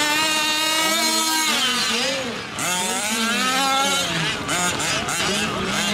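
Several 1/5-scale RC off-road trucks' small two-stroke engines racing, repeatedly revving up and dropping off, their notes overlapping.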